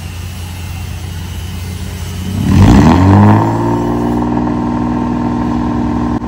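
Mercedes-Benz W124 with a straight-piped exhaust idling. About two and a half seconds in it is revved up, loudest at the top of the rev. It then holds at a raised, steady engine speed.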